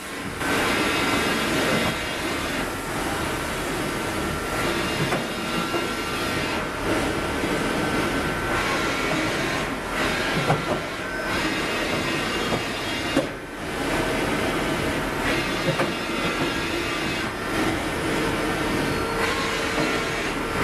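Hardinge Bridgeport VMC 760 XP3 vertical machining centre running under power with its table traversing: a steady mechanical whine holding a couple of even tones, with short dips every few seconds.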